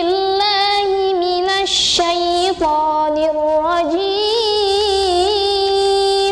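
A young woman reciting the Quran solo in murottal style: one long melodic phrase of held notes that waver and bend in ornaments, with a short break about two and a half seconds in.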